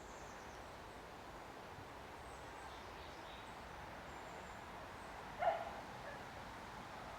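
Steady, quiet outdoor background hiss with one short animal call, such as a bark, about five and a half seconds in.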